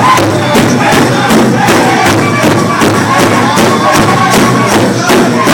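Powwow drum group singing a men's chicken dance song: men's high voices over a steady beat struck together on a big drum, with crowd noise underneath.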